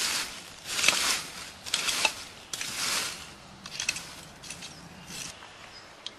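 Short-handled hand weeding tool scraping and digging into soil and dead leaves in repeated quick strokes, loosening the soil and tearing out weeds, with rustling of the roots and leaves. The strokes come roughly one a second and thin out about five seconds in, followed by a single sharp click.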